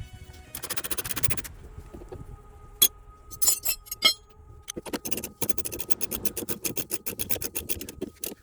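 Hand tools on a car's front suspension: a scrape and a few metal clinks, then a socket ratchet clicking rapidly and evenly for about three seconds near the end as a radius rod bolt is turned.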